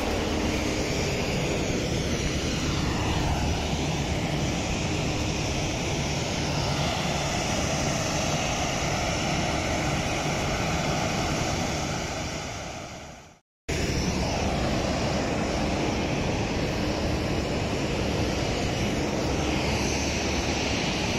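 Jet airliner engines running, a steady rush with a low hum; about two seconds in a faint whine falls in pitch. About two-thirds of the way through the sound fades out and comes straight back.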